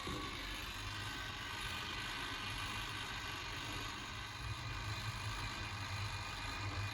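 Steady low electrical hum with a faint hiss, even throughout.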